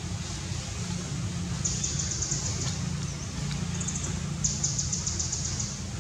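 Outdoor ambience: a steady low rumble with several bursts of high, fast-pulsing trills, the longest about two-thirds of the way through.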